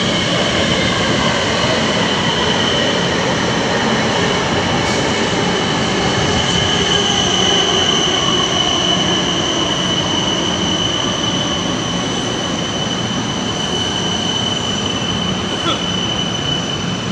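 A second-generation 1100-class LRT-1 light rail train running past at close range, its wheels and running gear rumbling on the elevated track. Over it is a steady high wheel squeal that fades out just before the end.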